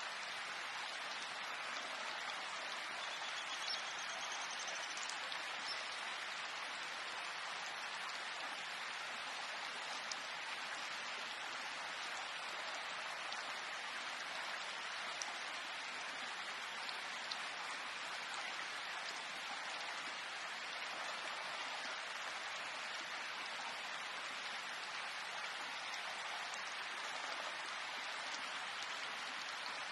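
Steady rain falling, an even hiss, with a few faint louder drop ticks here and there.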